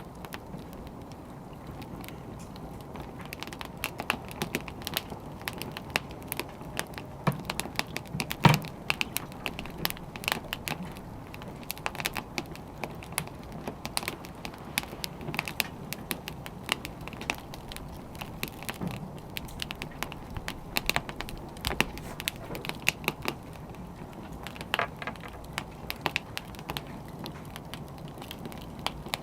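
Wood fire crackling: a steady low hiss with frequent irregular sharp pops and snaps, one louder pop about eight seconds in.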